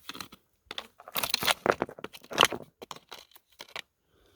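Footsteps crunching and rustling through dry leaves and twigs in irregular crackles, stopping a little before the end.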